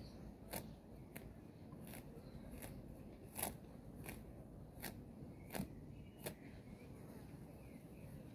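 Japanese quail pecking, each peck a sharp click, about ten of them at an even pace of roughly one every two-thirds of a second, stopping about two seconds before the end.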